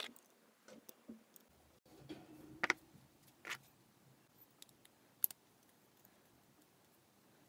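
Small brass and copper torch parts clicking and tapping against each other as they are handled and threaded together: a few scattered light clicks, the sharpest about two and a half seconds in and again a little past five seconds.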